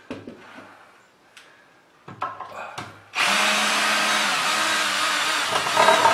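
Ryobi cordless drill running steadily for about four seconds, backing a stainless steel screw out of a wooden rail, after a couple of light knocks.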